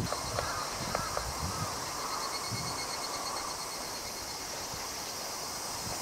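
Steady outdoor insect chorus, a high pulsing chirring that carries on, with a few short chirps in the first second or two.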